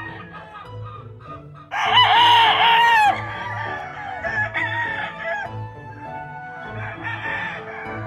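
Gamefowl roosters crowing: one loud crow about two seconds in, then fainter crows a little later. A low beat of background music runs underneath.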